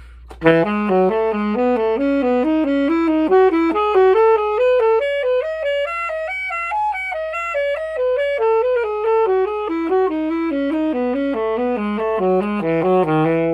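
Alto saxophone playing a C-sharp major scale in thirds: a steady run of notes zigzagging upward in pairs to the top about halfway through, then back down. It starts about half a second in and stops abruptly at the end.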